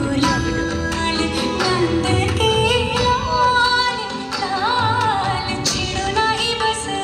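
An Indian song plays over stage loudspeakers as dance music: a sung melody with bending, ornamented notes over instruments.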